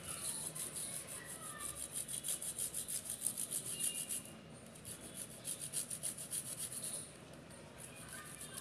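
Khoa (dried milk solids) being grated on a flat perforated metal hand grater: quick rasping strokes, about six a second, in two runs with a short break just past the middle, trailing off near the end.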